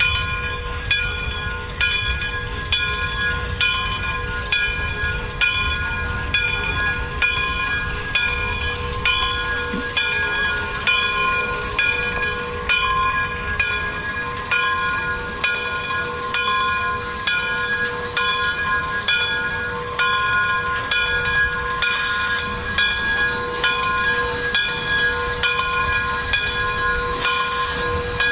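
Frisco 1630, a 2-8-0 steam locomotive, moving slowly with its bell ringing steadily, about one and a half strokes a second, over the low rumble of the engine. Two short bursts of steam hiss come about two-thirds of the way in and near the end.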